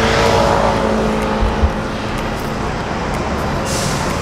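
City street traffic: a passing vehicle's engine hum over steady road noise, loudest in the first second or two and then easing.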